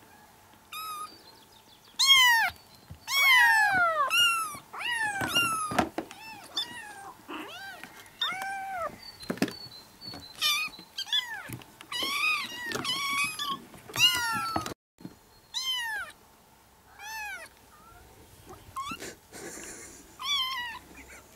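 A litter of four- to five-week-old kittens meowing over one another: thin, high meows that rise briefly and then slide down in pitch, one after another in quick succession. There is a quieter stretch about two-thirds of the way through before the calls pick up again.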